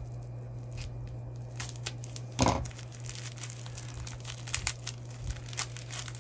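Bubble wrap crinkling and tearing as a taped-up knife package is pulled open by hand: a run of quick crackles, with one louder crackle about two and a half seconds in, over a steady low hum.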